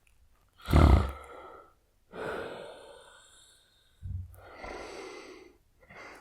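A man snoring heavily: one loud snore about a second in, then two long, noisy breaths.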